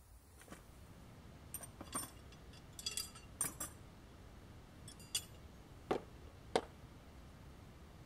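Scattered sharp metallic clicks and clinks, a dozen or so at irregular intervals, from metal parts being handled on a homemade band sawmill; two fuller knocks come about six and six and a half seconds in.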